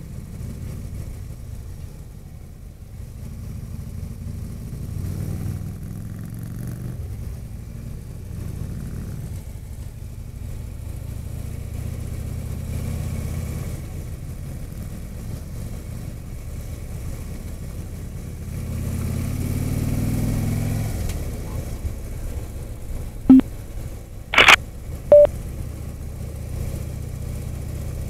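Touring motorcycle engine running on the move, heard from the rider's seat with wind and road noise, swelling briefly as the bike accelerates. Near the end come three short sharp sounds about a second apart, the middle one loudest.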